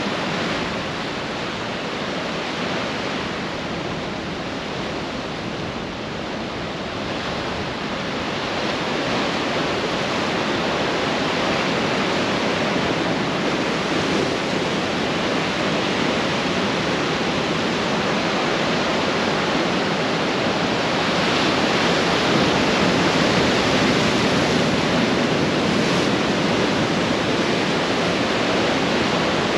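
Ocean surf washing onto the beach at high tide: a continuous rush that builds louder from about a third of the way in.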